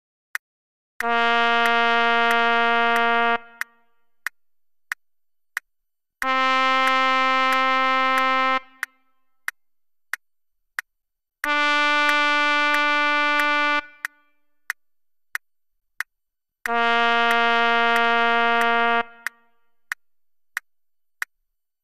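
Software playback of a B-flat trumpet part: four long notes, each held for a bar with a bar's rest between. The first three step upward and the fourth drops back to the first pitch, over a metronome clicking on every beat.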